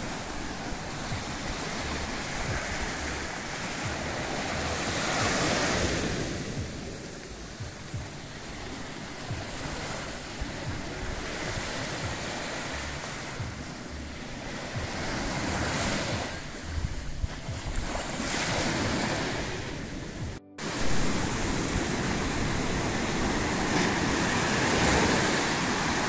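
Surf breaking and washing up a sandy beach, the rush swelling and fading with each wave, with wind buffeting the microphone. The sound drops out for a moment about twenty seconds in, then resumes.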